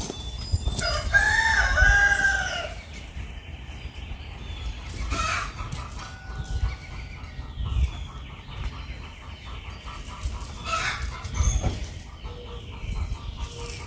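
A rooster crowing once, a drawn-out call about a second in, over low rumbling and scattered faint knocks.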